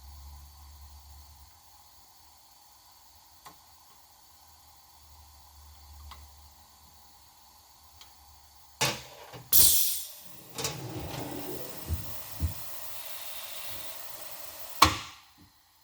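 A few light clicks of tooling being handled, then about nine seconds in a loud hissing rush that carries on for some five seconds with knocks in it and stops with a sharp clack.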